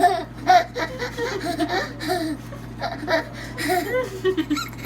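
A young child laughing in short, repeated bursts.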